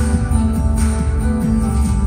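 Band music led by strummed acoustic guitar over heavy bass, with percussive hits marking the beat.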